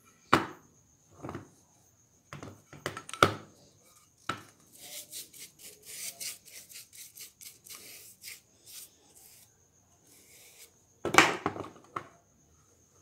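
Wooden boards knocking as they are handled and set down on a plywood base. In the middle comes a run of quick scratchy strokes as a brush spreads wood glue along a board edge, and there is a loud wooden knock near the end.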